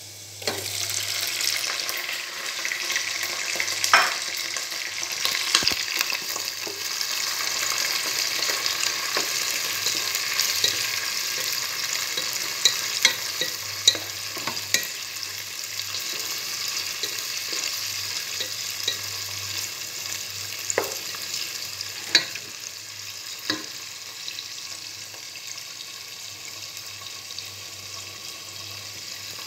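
Raw shrimp sizzling in hot oil in a nonstick pan, the sizzle jumping up about half a second in as they go in, with a wooden spatula knocking and scraping against the pan as they are stirred. The sizzle slowly eases off toward the end.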